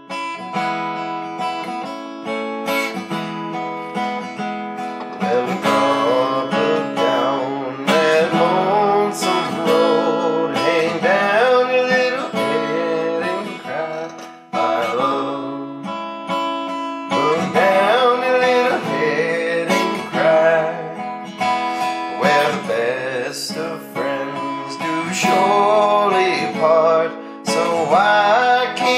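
Acoustic bluegrass string-band music: strummed acoustic guitar with picked banjo and mandolin over upright bass, playing continuously.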